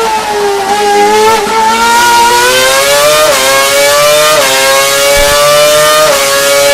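Formula 1 V8 engine running at high revs. Its pitch sags over the first second, then climbs and drops sharply about three times, as with upshifts while the car accelerates.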